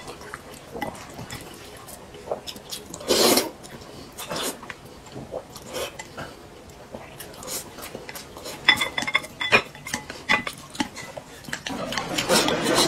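Chopsticks clicking and scraping against glass bowls as food is scooped from the bowl into the mouth, with a brief louder rush of noise about three seconds in and a cluster of ringing glass clinks about nine seconds in.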